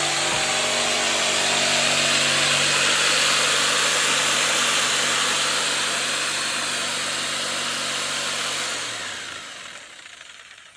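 Power saw cutting through a wooden board, running steadily, then winding down and stopping about nine seconds in.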